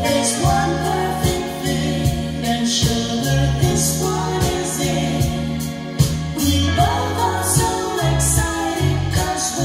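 A pop song with a singing voice over bass and drums, played back from a type I cassette on a 1982 Marantz SD 820 three-head cassette deck.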